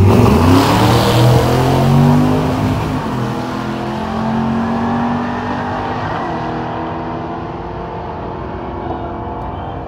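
Drag-racing cars launching off the start line and accelerating hard down the strip, engine pitch rising through the gears in the first couple of seconds, then the sound fading as they pull away.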